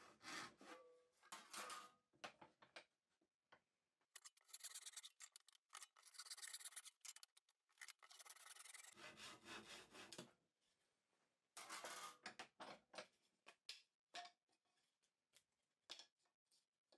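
Faint strokes of a hand saw ripping a softwood board lengthways, cutting with the grain. The sawing stops near the end, leaving a few light knocks.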